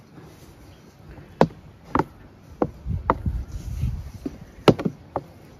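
Hands kneading samosa dough in a stainless steel mixing bowl on a wooden table, the bowl knocking and tapping sharply about half a dozen times at irregular intervals as the dough is pressed and turned.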